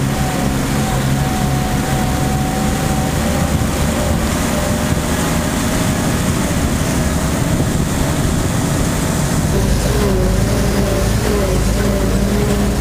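GMC CCKW 2½-ton army truck's straight-six engine running as it drives, heard from the open cab, with a thin whine above it that steps down in pitch about ten seconds in.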